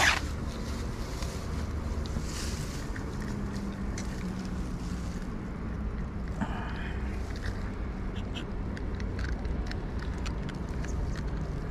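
Low steady rumble of wind on the microphone, with grass rustling and small sharp handling clicks from about five seconds in as a large snakehead is handled on the grass.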